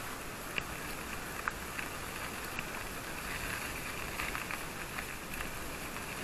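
Steady road noise of a bicycle riding along a dirt road, with a few light clicks scattered through.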